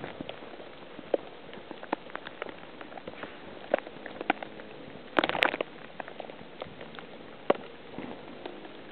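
Heavy snow ticking and pattering against the camera and nearby surfaces: irregular sharp little taps over a faint steady hiss, with a brief denser flurry of taps about five seconds in.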